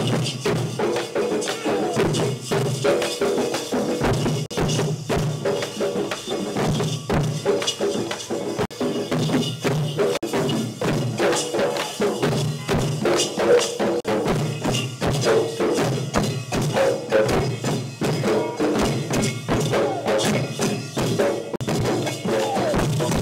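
Dollu kunitha troupe playing large dollu barrel drums with sticks, with hand-held metal cymbals clashing over them, a dense, steady drum beat throughout.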